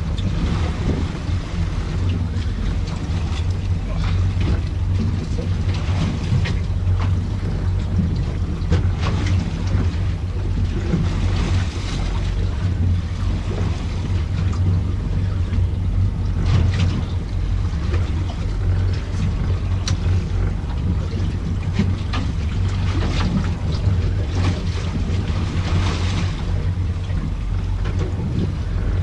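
A boat's engine running steadily with a low hum, under wind buffeting the microphone and the wash of water against the hull.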